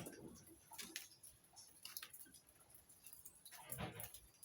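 Near silence with faint, irregular ticks and drips of rain falling on leaves, a few of them slightly louder near the end.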